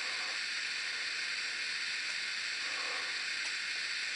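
Steady hiss of simulated steam from the sound decoder of a Minitrix N-scale S 3/6 steam locomotive model, standing still.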